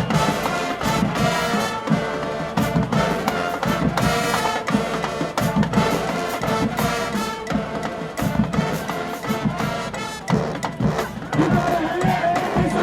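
Marching band playing: a full brass section over a pounding drumline.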